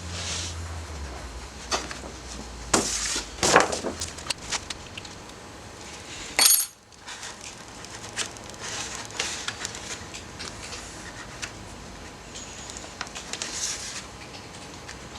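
Small hard objects being handled in a workshop: scattered clicks, clinks and knocks, busiest around three to four seconds in, with a brief sharp high-pitched sound about six and a half seconds in.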